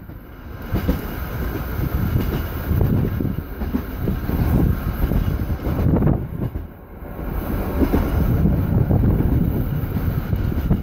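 Seaton Tramway narrow-gauge electric tram on the move, its wheels rumbling steadily on the rails. The rumble eases briefly about two-thirds of the way through.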